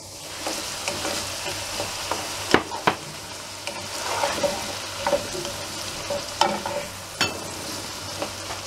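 Chopped tomato, onion, garlic and carrot sizzling in a frying pan while a wooden spoon stirs them. Several sharp knocks of the spoon and bowl against the pan are spread through the sizzle.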